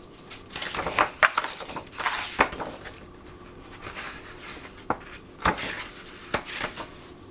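Large hardcover book being opened and its pages turned by hand: paper rustling and flapping, with several sharp taps.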